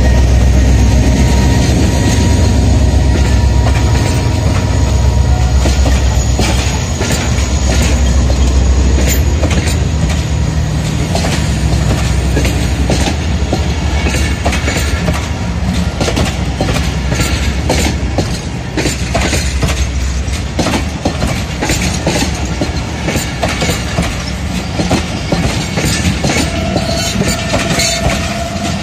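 Pakistan Railways diesel-hauled passenger train passing close by. The locomotive's low engine rumble dies away over the first several seconds as the coaches roll past, their wheels clattering irregularly over the rail joints.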